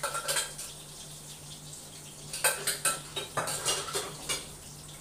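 Metal cooking utensils clinking and knocking against steel pots and pans on a gas stove, in a few short clusters of clatter.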